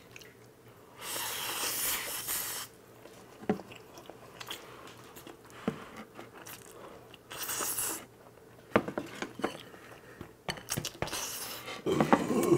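Jjapaghetti black-bean instant noodles being slurped and chewed at close range. There are two long hissing slurps, one about a second in and one past the middle, with chewing and a few small clicks between them.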